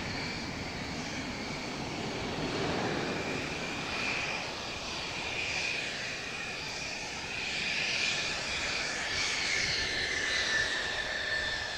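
Mitsubishi F-2 fighter's General Electric F110 turbofan running at taxi power: a steady jet whine over engine rumble. It gets somewhat louder and dips slightly in pitch in the second half as the jet turns past.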